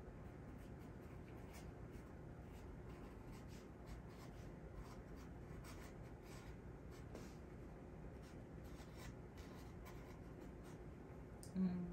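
Marker pen writing a plant label: a run of faint, irregular scratchy strokes.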